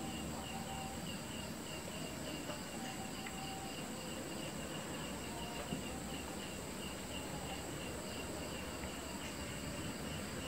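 Crickets chirping steadily, a rhythmic chirp a few times a second over a constant high-pitched insect drone.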